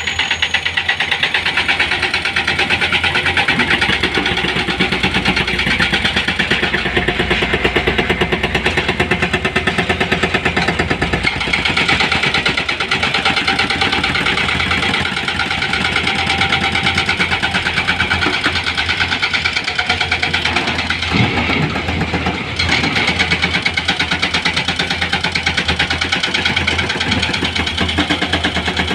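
Heavy diesel engine of construction equipment running steadily, with a fast, even pulsing beat throughout.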